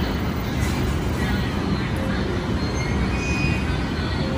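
E531 series AC/DC electric train giving a steady low rumble beside the platform. Faint musical tones sound over it.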